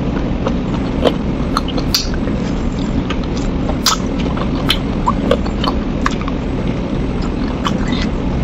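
Close-miked eating of spicy chicken feet: scattered sharp little clicks and smacks of lips, teeth and sucking as the feet are nibbled, over a steady low hum.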